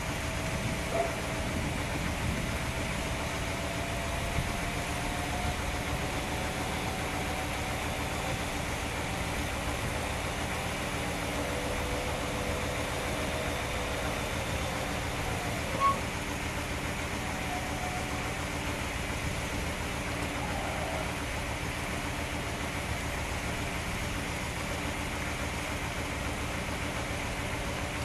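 Power convertible-top mechanism of a 1960 Ford Thunderbird running, with a faint wavering motor whine, as the rear deck lid rises and the top begins to fold. Under it is the steady hum of the car's 430 cubic-inch V8 idling. A single sharp click or clunk comes about sixteen seconds in.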